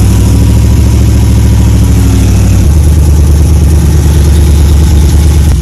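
A cammed LS V8 truck engine runs very loud and steady right at the microphone, dropping slightly in pitch about two and a half seconds in.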